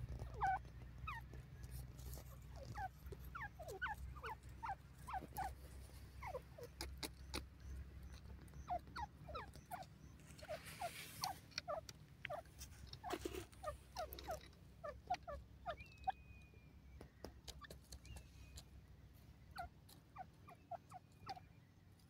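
Grey francolin giving soft, quick, falling squeaky notes in irregular runs while it forages, over a low steady rumble, with a brief rush of noise about halfway through.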